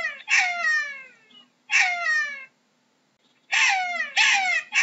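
Jackal giving a series of high yelping calls, each sliding steeply down in pitch. There are about five calls, in two bunches with a pause of about a second between them.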